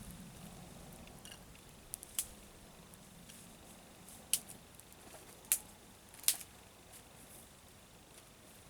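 Newly lit wood fire of twigs and dry tinder crackling, with about five sharp, scattered pops over a quiet background.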